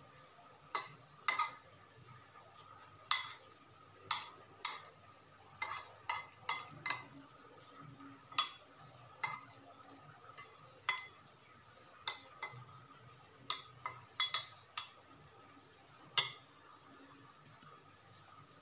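Metal spoon clinking against a glass bowl while stirring rice: about twenty sharp clinks at irregular intervals, each ringing briefly, stopping about sixteen seconds in.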